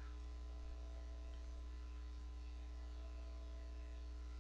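Steady electrical mains hum, holding one even low tone throughout, with no handling or tool sounds.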